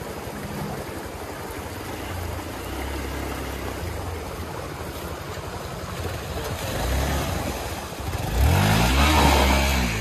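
Hero XPulse 200 4V's single-cylinder four-valve engine running at low revs as it crosses a rocky stream bed. About eight seconds in it revs up and passes close, the loudest part, with water splashing around the wheels.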